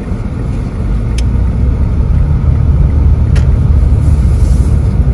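Low, steady rumble of a car driving, engine and road noise heard from inside the cabin, growing louder about a second in.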